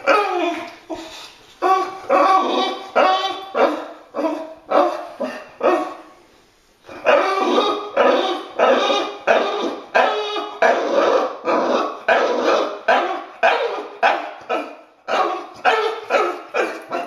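Bulldog giving short whining barks over and over, about two a second, with a brief pause about six seconds in: she is complaining, demanding a toy she can see on the counter.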